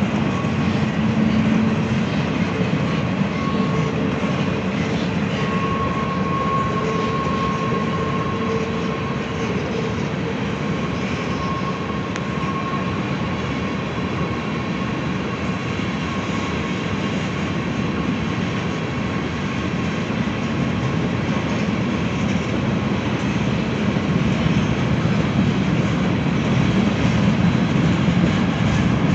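A mixed freight train's boxcars and tank cars rolling past on the rails: a steady rumble of wheels on track. A thin high squeal comes and goes during the first dozen seconds or so.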